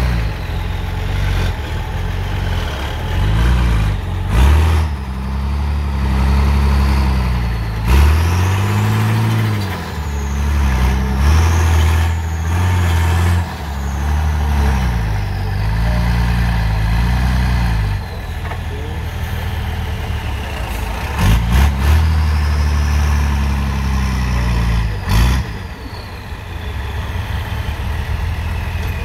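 Off-road trial truck's engine revving up and down again and again as it works through deep mud, with a few short sharp bangs in between. Near the end it settles to a steadier, lower running note.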